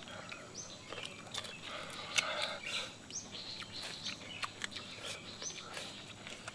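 Chewing and crunching of small roasted sparrows being eaten by hand: scattered clicks, cracks and wet mouth sounds. A short high rising chirp from a small bird repeats several times behind it.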